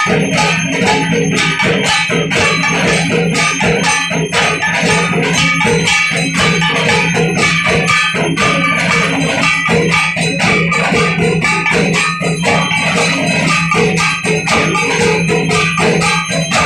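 Hindu aarti percussion: temple bells and cymbals ringing in a fast, steady rhythm, with drums, loud and without a break.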